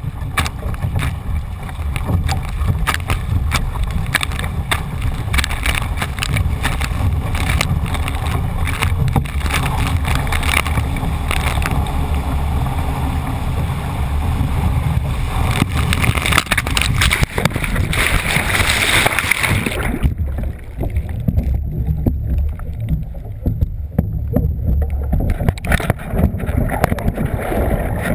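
Water splashing and rushing around an OC2 outrigger canoe as it is paddled through chop, over a heavy rumble of wind on the microphone. A rushing wash of water builds from about sixteen seconds. Near twenty seconds the sound turns dull and muffled as the camera goes under water in the capsize (huli).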